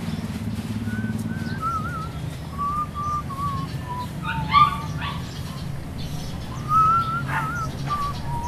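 A person whistling a wavering tune that steps down through a few notes, over a steady low hum. Two short animal calls break in, the loudest about halfway through and another near the end.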